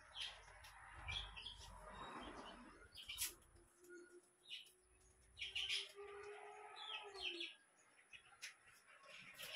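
Faint clicks and knocks of a hard plastic shoe-rack shelf panel being handled, with short high chirps scattered through.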